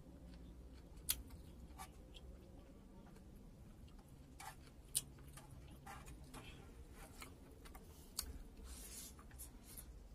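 Quiet eating sounds: a few sharp clicks and smacks from chewing, and near the end a short scrape of fingers gathering rice across the plate.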